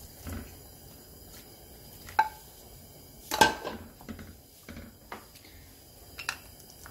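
A spatula clinking and tapping against a plastic bowl and a nonstick frying pan as raw pork slices are scraped into the pan. There are a few separate knocks, the loudest about three and a half seconds in, with a brief ring.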